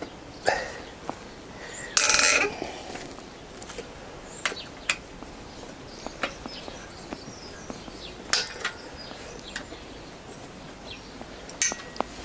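Scattered metallic clinks and knocks of a hand tool on a motorcycle's fork yoke and clamp fittings, with one longer rattle about two seconds in.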